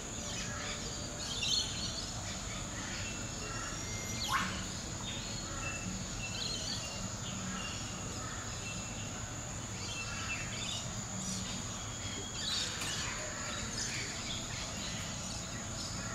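Outdoor ambience of birds chirping and calling, with one sharp falling whistle about four seconds in, over steady background noise and a continuous high-pitched whine.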